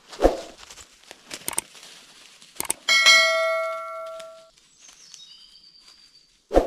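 A single metallic ding about three seconds in, ringing out and fading over about a second and a half, with a soft knock before it and another near the end.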